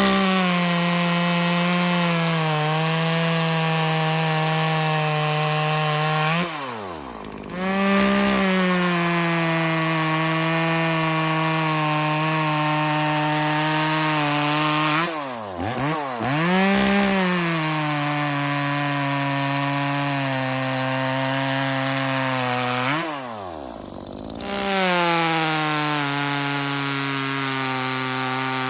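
A 420ES two-stroke chainsaw of about 40 cc, a clone of the Echo CS-400, run at full throttle while cutting through wood. Its pitch sags slightly under load through each cut. The revs drop briefly about 7, 16 and 24 seconds in, as the throttle comes off between cuts, then climb again.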